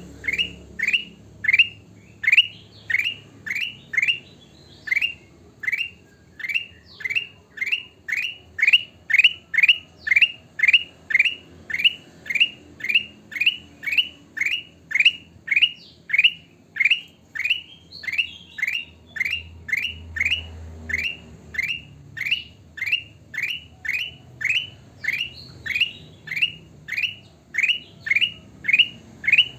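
Kutilang emas bulbul calling over and over: one short rising note repeated about twice a second, with a brief pause a few seconds in.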